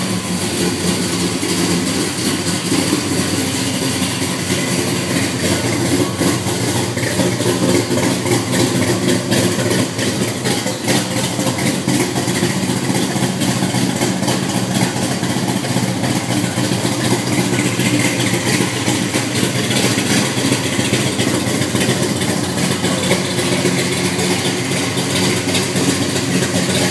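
1969 Plymouth Road Runner's 440 Six Pack big-block V8, fed by three two-barrel carburettors, idling steadily.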